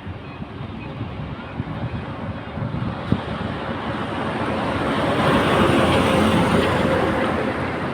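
Heavy diesel machinery engine running, growing louder to a peak after about five seconds, with a single sharp knock about three seconds in.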